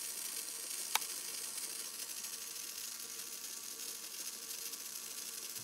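Small DC motor turning a plastic spur-gear train (12-tooth gear through a 60-tooth idler to a 36-tooth gear), a steady high whirring hiss, with a single sharp click about a second in.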